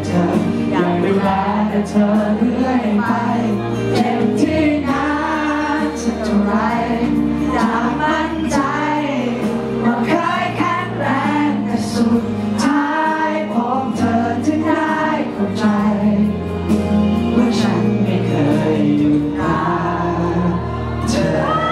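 A man singing a Thai pop song live into a handheld microphone over backing music. At the very end the audience starts cheering.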